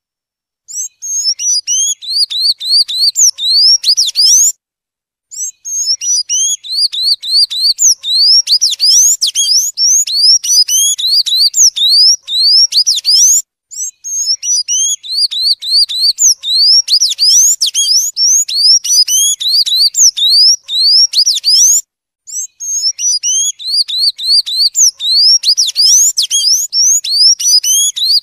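Sayaca tanager singing: long runs of rapid high notes, each a quick slide up or down, broken by three short pauses.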